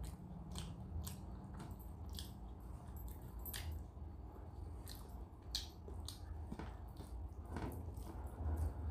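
Fingers mixing and squeezing rice with runny dal on a steel plate: irregular wet squelches and sticky clicks, with chewing mouth sounds, over a steady low hum.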